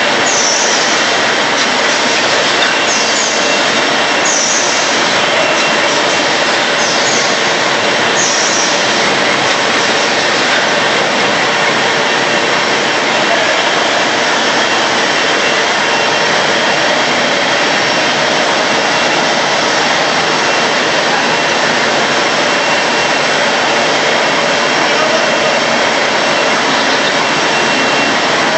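Automatic A4 copy-paper roll-to-sheet cutting machine running: a loud, steady mechanical noise, with short high squeaks repeating about every second and a half through the first nine seconds or so.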